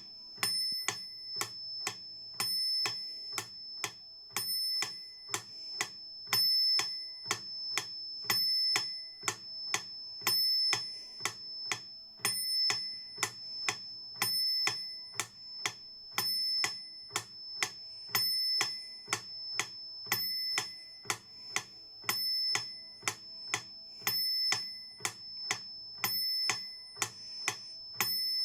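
Metronome ticking at 120 beats per minute: two even clicks a second, every fourth click accented. A steady high-pitched tone runs underneath.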